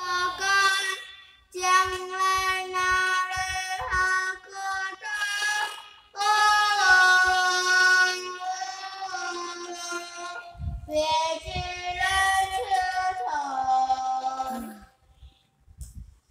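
A young girl singing a song solo into a handheld karaoke microphone, in phrases of held notes. She pauses briefly twice and stops about fifteen seconds in.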